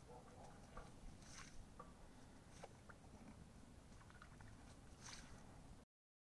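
Near silence: faint outdoor background with a few soft scrapes and clicks, cutting to dead silence near the end.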